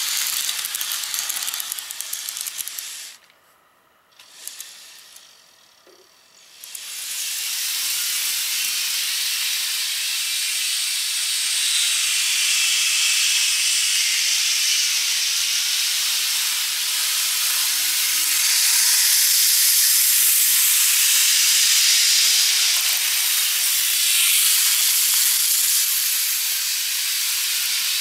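N-gauge model train running on TOMIX plastic track: a steady high hiss of the small motor and the wheels on the rails. It fades almost to nothing about three seconds in and comes back about three seconds later.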